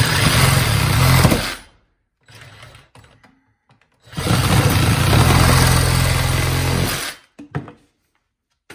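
Reciprocating saw with a fine-tooth metal-cutting blade cutting through PVC drain pipe in two runs: the first stops about a second and a half in, the second runs from about four to seven seconds in. A couple of short knocks follow near the end.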